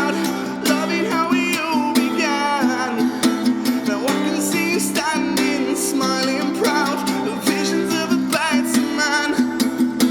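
Acoustic guitar strummed steadily under a wordless sung melody, in the natural reverb of a large empty warehouse.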